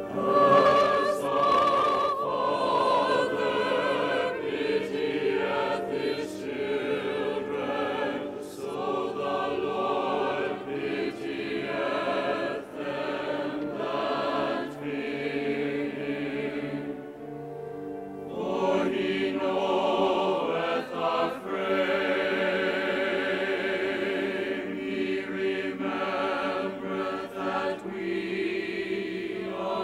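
Mixed choir singing with an instrumental ensemble accompanying, in long held phrases with vibrato. The music thins to a short lull a little past halfway, then the choir comes in full again.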